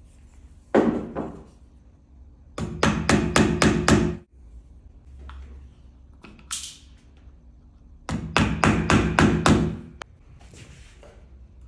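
Hammer strikes: a single blow, then two quick runs of about six blows each, about four a second.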